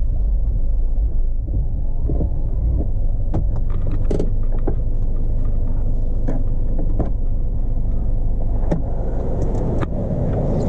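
A steady low rumble with scattered short clicks and knocks.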